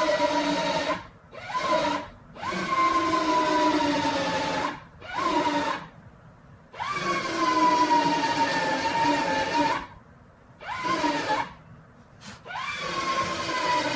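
Power drill running in about seven bursts of half a second to three seconds, its whine rising as each burst starts and sagging slightly in pitch under load while drilling out the spot welds that hold the truck's bedside.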